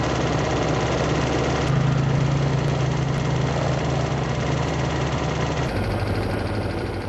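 ATV engine running steadily, its note changing abruptly twice.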